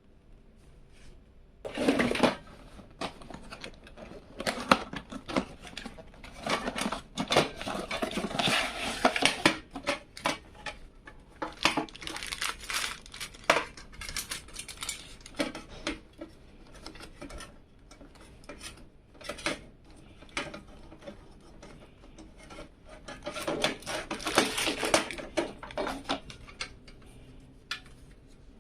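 Hard metal and plastic PC case parts being handled: irregular clicks, taps and small rattles, with several busier stretches of scraping and clattering.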